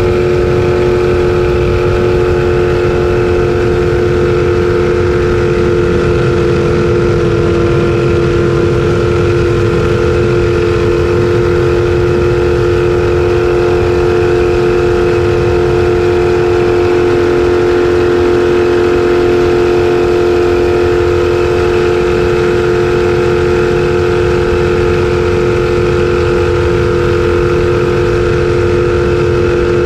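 Race jet boat's engine running steadily at speed, heard from the open cockpit, with a steady pitch throughout.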